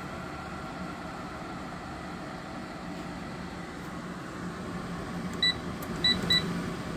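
2008 Frigidaire 6500 BTU window air conditioner running with a steady hum. Near the end three short, high beeps sound, the last two close together, from its control panel as buttons are pressed.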